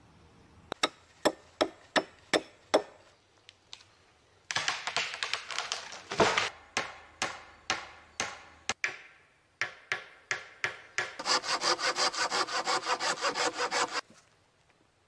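A hand saw cutting through wood in rhythmic back-and-forth strokes, which turn faster and shorter near the end before stopping abruptly. Before the sawing there are about six sharp wooden knocks in quick succession.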